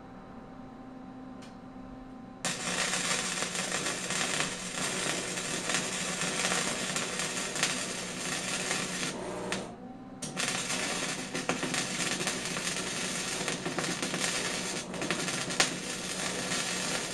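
Electric arc welding a gusset onto frame tubing: the arc strikes about two seconds in and runs with a steady crackle and sizzle, breaks off briefly around the middle, then strikes again and runs until just before the end. Before the first strike there is only a faint steady hum.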